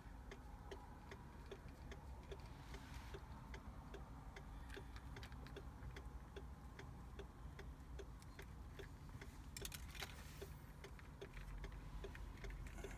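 Faint, steady ticking, evenly spaced at about two and a half ticks a second, over a low background hum in a car cabin.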